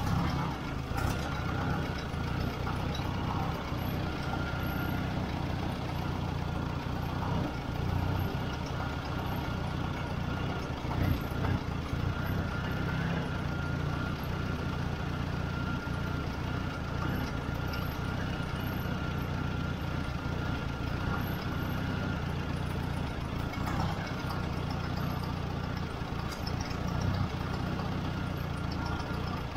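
Ford 600 tractor's four-cylinder gasoline engine idling steadily on a freshly fitted aftermarket carburetor, with a faint steady high whine through the middle of the stretch.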